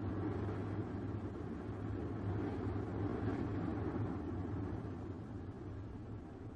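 Low, steady rumbling ambient drone that fades out over the last couple of seconds.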